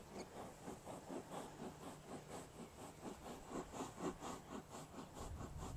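Horse moving steadily around the lunge circle: an even rhythm of soft hoofbeats and hard breathing, about four pulses a second, from a horse with a breathing problem.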